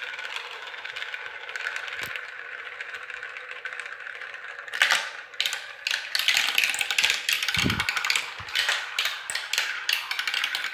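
Three marbles rolling down a plastic marble run: a steady rolling rattle through the clear plastic tubes and chutes. From about halfway through there is a quick flurry of clicks and clatters as they drop through the pieces and knock against the track.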